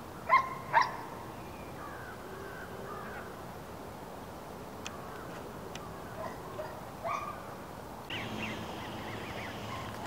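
Two short, loud animal calls about half a second apart near the start, then a few faint bird chirps over a steady outdoor hiss.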